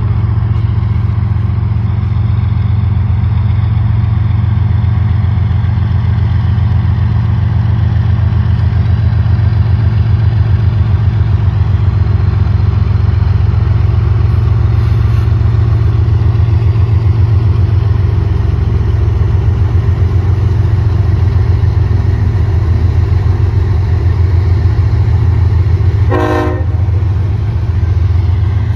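Norfolk Southern diesel-electric locomotives hauling a tank-car freight train, running past with a steady, loud low engine rumble. A brief rattle cuts in near the end.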